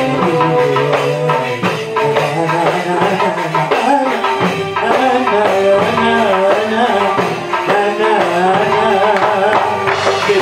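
Live Arabic music: a man singing an ornamented, wavering melody into a microphone over an electronic keyboard and a hand drum.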